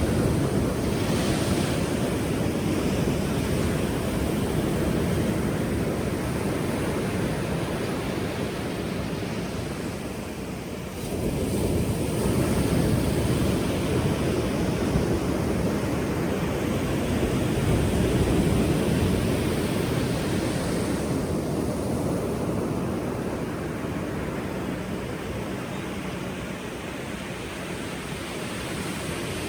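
Powerful ocean waves breaking in a continuous deep wash of surf. A fresh wave breaks suddenly about eleven seconds in, another swell builds a few seconds later, and the surf eases off toward the end.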